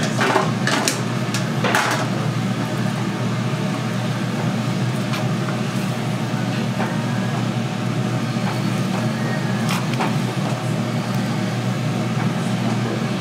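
Steady low machine hum, with a few sharp clicks and knocks of kitchen utensils in the first two seconds and again about ten seconds in.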